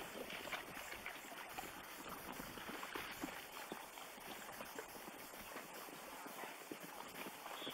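Hooves of a herd of plains zebras running over the ground: a continuous patter of many hoofbeats with scattered sharper knocks.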